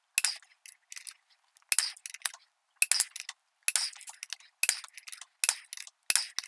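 Socket ratchet wrench clicking in short bursts of rapid clicks, roughly one burst a second, as it is swung back and forth tightening a tractor wheel's lug nut.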